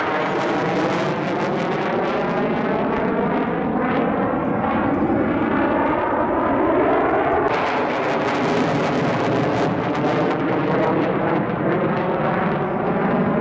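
A JASDF F-4EJ Phantom II in flight, its twin J79 turbojets making a loud, continuous jet noise. The tone slowly wavers and shifts as the fighter banks and climbs, and turns harsher about halfway through.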